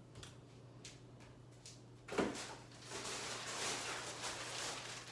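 Off-screen handling noise as someone fetches a package: a knock about two seconds in, then a few seconds of steady rustling and shuffling.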